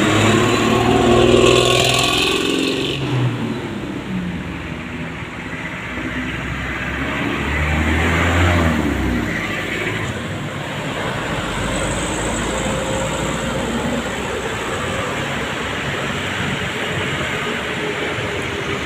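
Roadside traffic on a busy main road: the engines of passing vehicles. A loud vehicle goes by at the start, its engine note falling as it passes, with a brief hiss at about two seconds. A deep engine rumble passes about eight seconds in, then steady traffic noise.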